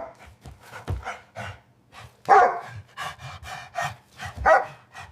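A dog barking repeatedly in short bursts, an alarm bark, cut off suddenly at the end.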